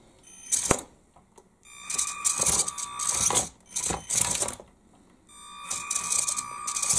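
Small electric motor of a 1/16 RC truck driven through a newly fitted electronic speed controller on a test run: it runs twice, each time for about two seconds, with a steady whine over a rattle, and sharp clicks in between. The test shows the controller working.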